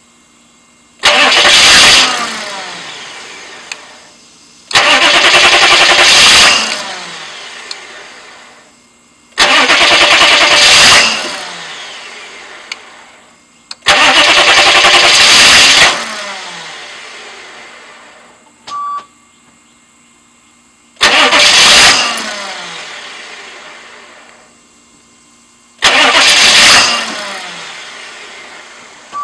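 A car engine is cranked six times, in bursts of one to two seconds, but it does not start. Each attempt winds down with a falling pitch afterwards. A short beep sounds about two-thirds of the way through.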